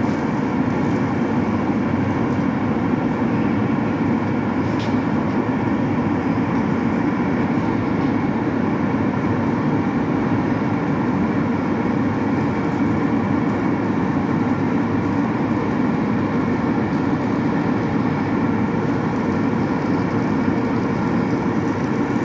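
Steady machine noise: a loud, unbroken low drone with a rough texture and faint steady tones above it.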